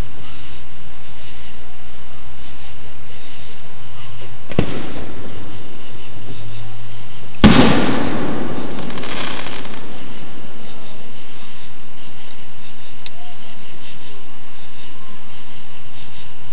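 Aerial fireworks: a quieter sharp bang about four and a half seconds in, then a much louder shell burst about seven and a half seconds in whose sound fades away over about two seconds. Night insects chirp steadily throughout.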